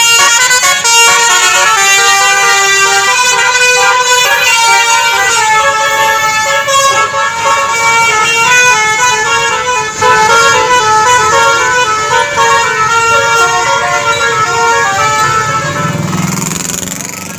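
Basuri 'telolet' musical bus horn, several horn tones sounding together and stepping through a melody without a break. Near the end the horn fades and a low rumble comes up.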